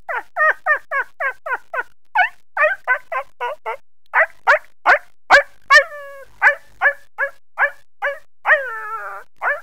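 A person imitating a dog with their voice: a rapid string of short, falling yips, about four a second, with a few louder, harsher barks midway and a longer wavering whine near the end.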